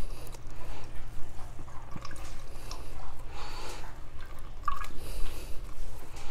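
Whey dripping and trickling from a cloth bundle of fresh queso fresco curds as it is squeezed by hand over a colander, draining the whey from the cheese.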